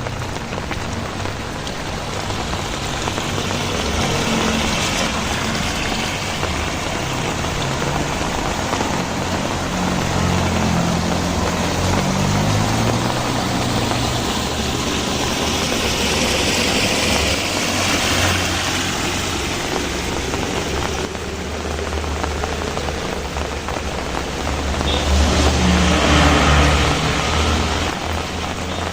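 Steady rain, with motor vehicles passing on the wet road. An engine hum shifts in pitch around the middle, and tyre hiss swells twice, loudest near the end.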